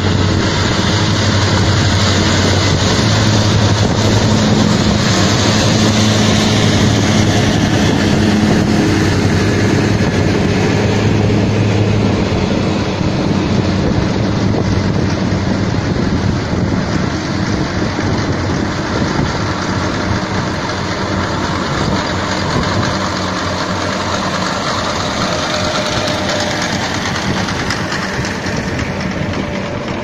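Engines of heavy harvesting machinery (tractor, mower and forage harvester) running steadily. A low engine hum is clearest over the first twelve seconds or so, then weakens, under a constant rushing noise.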